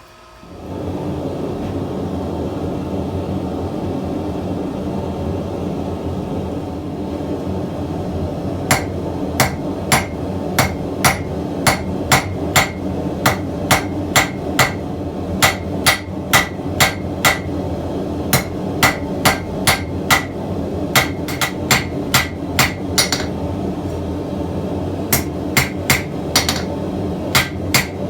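Blacksmith's hammer striking hot metal on an anvil, ringing blows about two a second in runs with a short pause. Underneath is a steady rushing roar from a gas forge burner that comes on just under a second in.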